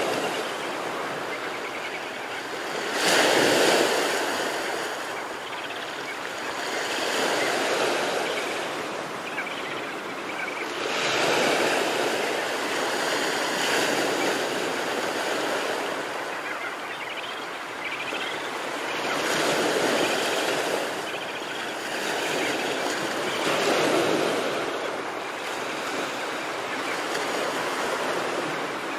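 Ocean surf breaking onto a sandy beach: a steady wash of water noise that swells every few seconds as each wave breaks, loudest about three seconds in.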